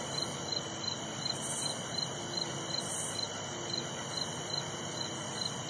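Insects chirping: a regular high pulse about three times a second over a steady high-pitched trill.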